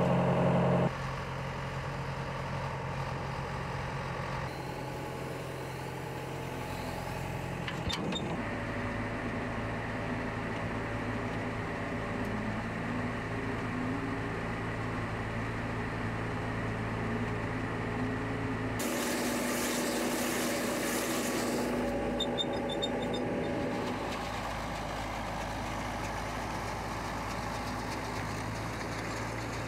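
Steady hum of running machinery or an engine, its pitch and tone changing abruptly several times. A loud hiss comes in for a few seconds past the middle.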